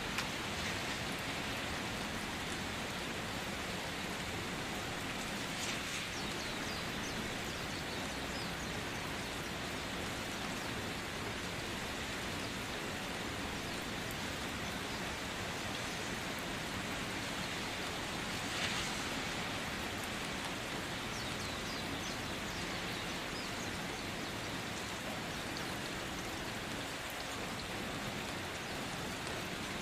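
Food sizzling in a cooking pot: a steady frying hiss with faint scattered crackles, and two brief louder sounds about 6 and 19 seconds in.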